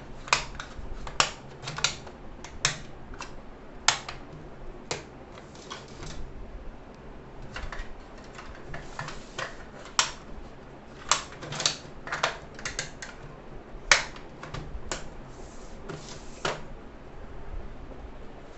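Irregular sharp plastic clicks and snaps from a multi-compartment plastic pencil box being handled, as its trays and small drawers are pushed shut and its lid is closed.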